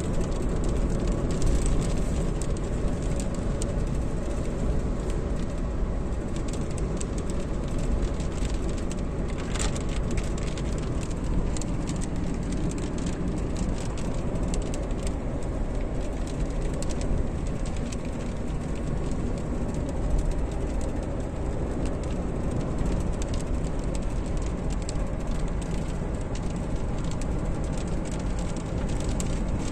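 Steady road and engine noise inside a Volkswagen car driving at about 100 km/h in heavy rain, with raindrops striking the windshield and body as many small, scattered ticks.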